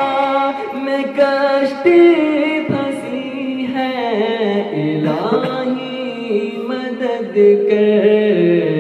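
A man singing an Urdu naat unaccompanied, drawing out long sliding, ornamented melodic lines.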